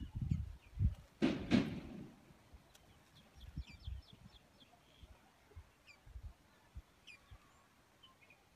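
Faint, short bird chirps scattered through, with a brief double rush of noise a little over a second in and a few low knocks near the start.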